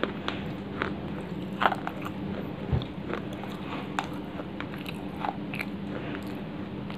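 Close-miked biting and chewing of dry clay pot pieces: irregular sharp crunches, the loudest about one and a half seconds in, over a steady low hum.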